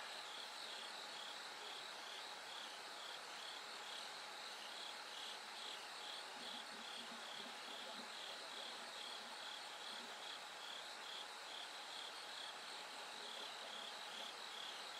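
Bell crickets chirping: a high ringing pulse repeating about twice a second, over a steady higher trill of other autumn insects and a faint hiss.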